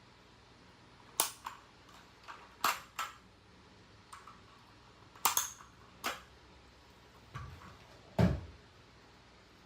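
Hard items, likely the keyboard and its packaging from an unboxing, being handled and set down: about ten scattered, irregular clicks and knocks, with a heavier dull thump near the end.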